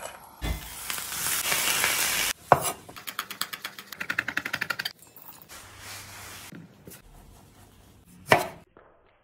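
Food grated on a flat rasp grater into a metal bowl, then a chef's knife chopping red chillies on an end-grain wooden cutting board with quick strokes, about six a second. Then a cloth rubs over the board, and a single sharp knock comes near the end.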